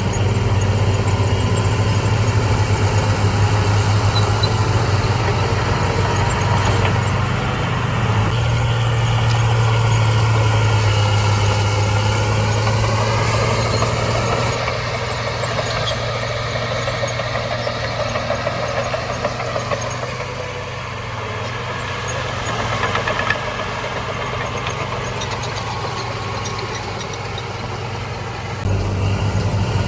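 Heavy diesel engine of an earthmoving machine running steadily with a strong low hum, its pitch rising about halfway through and then easing off to a quieter level. The sound changes abruptly near the end.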